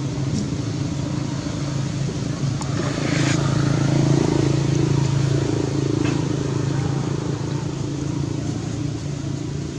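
A motor vehicle engine running with a steady low drone that grows louder in the middle and then eases off, as when it passes by.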